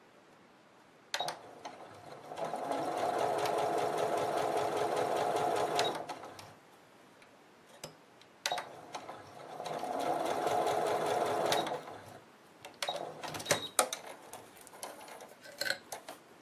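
Electronic household sewing machine stitching a narrow hem through silk chiffon and stiff ban roll tape, in two runs of a few seconds each that speed up at the start and then stop. Each run is preceded by a sharp click, and a scatter of clicks and knocks comes near the end.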